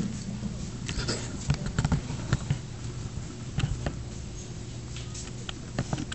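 Room tone of a function hall: a steady low hum with scattered light clicks and knocks.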